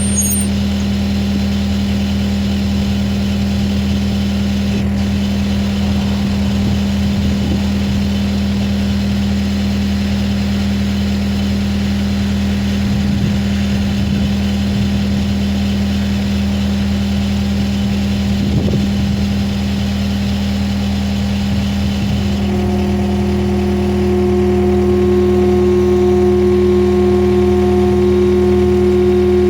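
Skid steer's diesel engine running steadily at idle. About 22 seconds in, a higher-pitched steady whine joins in and the sound gets slightly louder.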